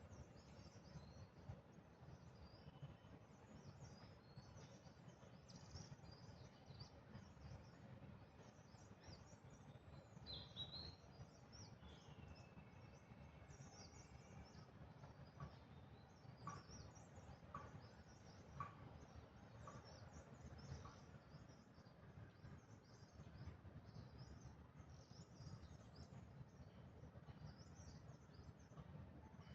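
Faint outdoor ambience: many small birds chirping high and continuously over a steady low rumble, with a couple of whistled glides and a few short ticks in the middle.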